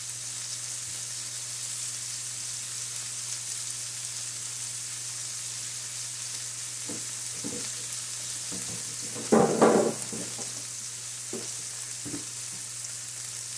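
Seasoned pork shoulder slices with onion, carrots and garlic sizzling steadily in a frying pan, with a short louder sound about nine seconds in.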